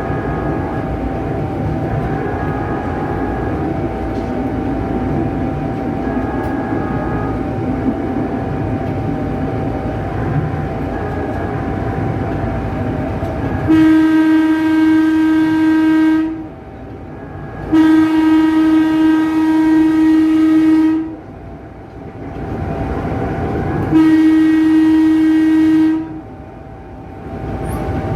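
Tokyu 8500-series electric train running with a steady rumble and a thin whine, then its electric horn sounds three long blasts in its second half, the middle one the longest.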